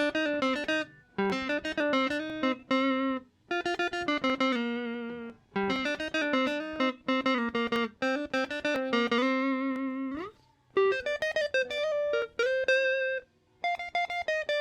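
Electric guitar played through a Zoom G1X ON multi-effects pedal on its Z-Clean amp model, giving a clean tone with a lift in the mids. It plays phrases of quick single-note melody with short pauses between them, and a fast upward slide about ten seconds in.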